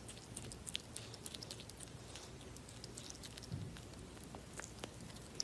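Common marmoset chewing food close up: many faint, quick, irregular crunching clicks.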